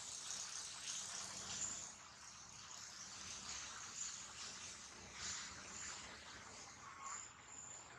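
Faint outdoor ambience: a steady high hiss of insects, with a brief high chirp near the end.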